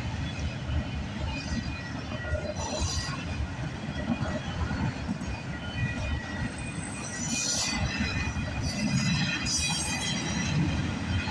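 Freight train cars rolling past on steel rails with a steady low rumble, broken by a few brief high-pitched wheel squeals.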